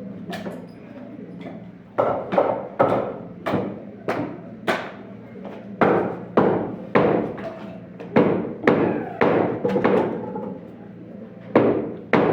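Hammer blows, about sixteen strikes at roughly two a second in runs of three or four with short pauses, each knock ringing briefly.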